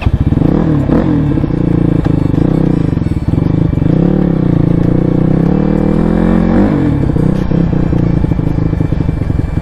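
CX250R dirt bike engine running as the bike is ridden over a rough dirt track, its pitch rising and falling with the throttle. About two-thirds of the way through, the revs drop to a lower, rougher pulse.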